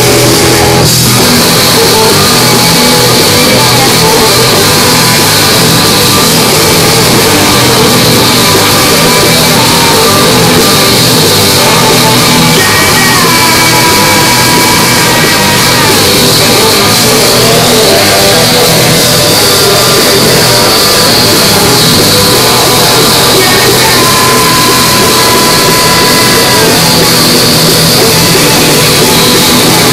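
Live rock band playing loud, with electric guitar, saxophone and drums.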